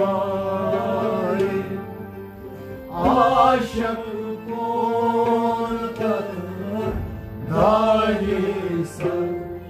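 A man singing a Kashmiri Sufi devotional song (kalam) in long, drawn-out phrases with sliding ornaments. A harmonium accompanies him with steady held notes, and a bowed string instrument joins in.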